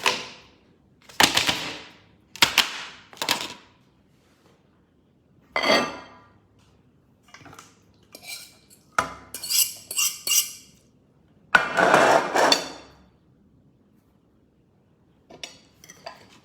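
Dishes and cutlery clinking and clattering in a string of separate short knocks with pauses between them, and two longer runs of clatter past the middle.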